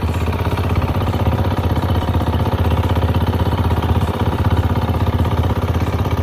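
Fishing boat's engine running steadily at sea, a fast even beat with a strong low hum.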